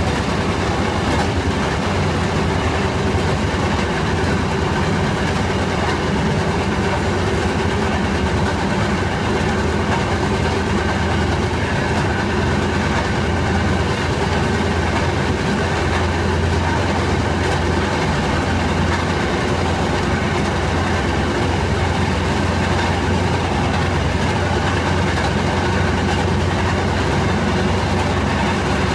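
Fairmont M19 rail speeder running steadily along the track, its small engine humming with the wheels rolling on the rails, heard from inside the cab.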